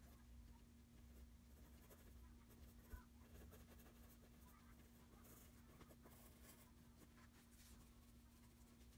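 Faint scratching of a graphite pencil stroking across drawing paper as it shades, over a steady low hum, with one soft thump about three seconds in.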